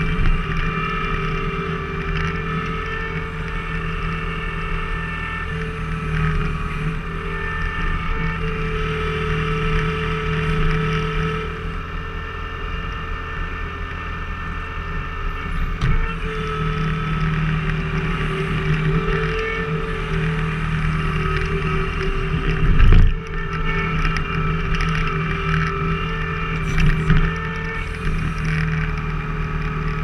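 Skid steer engine running steadily under hydraulic load as a wedge splitter attachment drives through firewood rounds, its note shifting a few times with the load. A single heavy knock comes a little past the middle.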